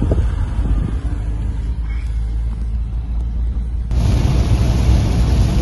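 Steady low rumble of a vehicle on the move. About four seconds in, the sound cuts abruptly to a car cabin at speed on a wet road in heavy rain: road rumble under a louder, even hiss of rain and tyre spray.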